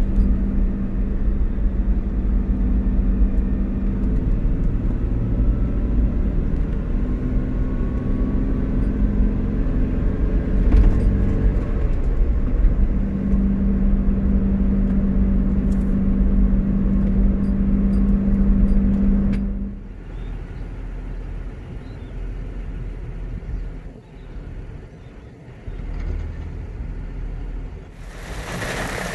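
Car running with a steady low drone that drops to a quieter rumble about two-thirds of the way through. Near the end a loud hiss of rain comes in.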